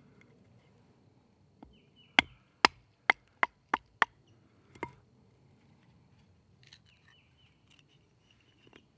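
A wooden baton stick knocking on the spine of a fixed-blade knife, driving the blade down through a piece of wood to split it. There are about six sharp strikes a third of a second apart, then one lighter one, followed near the end by a few faint wooden knocks as the split pieces come apart.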